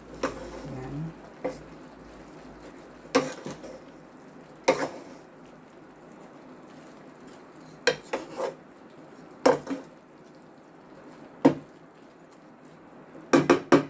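Wooden spatula stirring chopped vegetables in a metal pot, clacking against the pot's side and rim in a dozen or so irregular knocks over a faint steady hiss.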